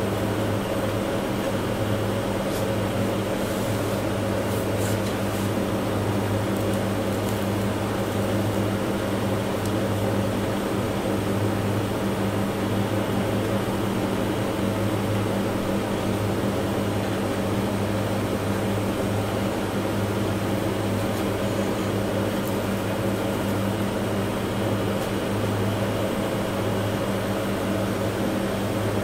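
Steady low electric hum, with a few faint clicks in the first few seconds.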